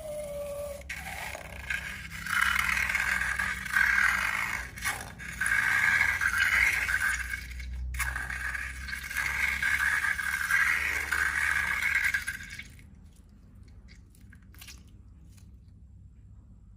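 Scraping and stirring of slime in a container, going in uneven waves of strokes, then stopping abruptly about thirteen seconds in.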